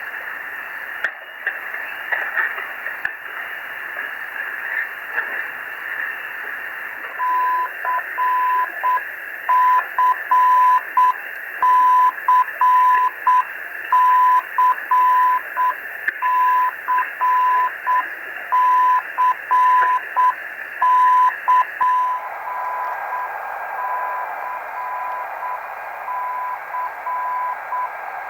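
Shortwave radio receiver hissing with band noise while a Morse-like signal is received: from about seven seconds in, a steady tone near 1 kHz keys on and off in short and long marks. Near the end the hiss changes character and the keyed tone carries on fainter.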